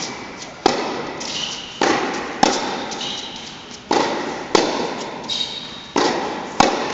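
Tennis balls struck by racquets and bouncing on a hard indoor court during a baseline rally: about seven sharp pops spaced roughly half a second to a second and a half apart, each ringing on in the hall's echo.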